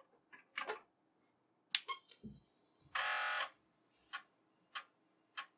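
Apple III switched on with a sharp click, then its half-second buzzy startup beep, followed by an Apple Disk II floppy drive spinning with a faint hum and its head clicking softly about every two-thirds of a second as it reads the boot disk, a sign that the drive is working.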